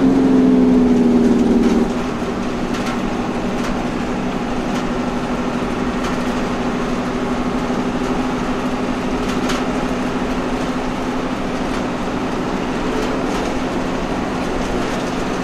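Bus engine running steadily under road noise, heard from inside the driver's cab. A horn sounds for about two seconds at the start, and there are a few light rattles.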